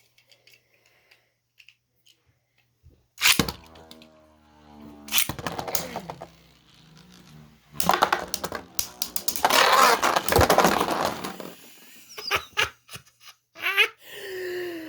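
Spinning Beyblade tops clashing in a plastic stadium: sharp cracking hits about three and five seconds in, a dense run of clattering collisions from about eight to eleven seconds, and a few more hits near the end.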